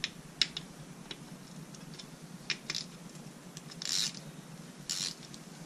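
Small hand tool clicking and rasping against the oil filter cover bolts of a Kawasaki KFX 450R as they are tightened. A few sharp metal clicks come first, the loudest about half a second in, then two short rasps about four and five seconds in.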